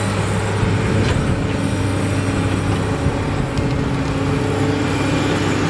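Diesel engine of a wheeled hydraulic excavator running at a steady speed with a low hum while the machine digs earth.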